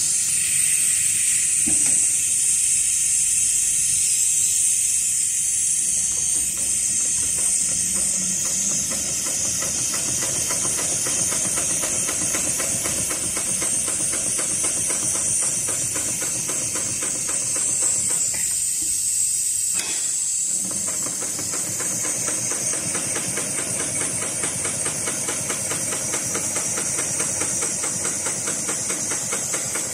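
HighTex 733 super-heavy-duty walking-foot industrial sewing machine stitching through multi-ply polyester lifting-sling webbing with very thick thread: a fast, even mechanical clatter of needle and walking-foot strokes over a steady hiss. The stitching breaks off briefly about two-thirds of the way through, then resumes.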